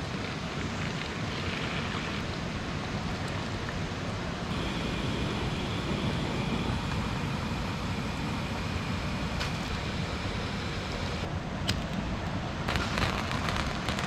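Steady rushing of a flowing river, with a thin high steady buzz for several seconds in the middle and a few sharp clicks near the end.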